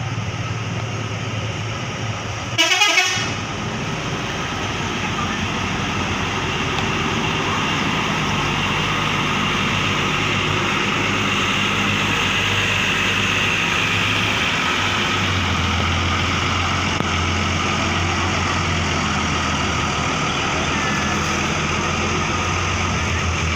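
Buses leaving a terminal: diesel engines running, with air horns of the telolet kind tooting. A short loud blast comes about three seconds in, and a deeper, steady engine drone sets in about halfway through.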